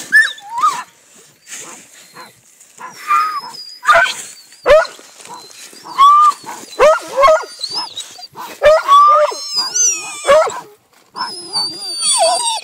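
Hunting dogs yelping and whining excitedly at a burrow, baying at the agouti they have run to ground. Short yelps come in quick clusters, with a few barks among them.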